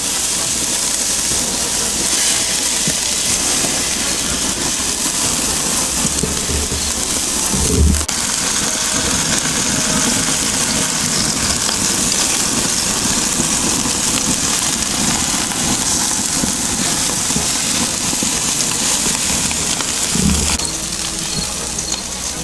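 Jerk-marinated porgies sizzling on a charcoal grill over open flames: a steady, loud hiss, with a knock about eight seconds in and a short low thud near the end.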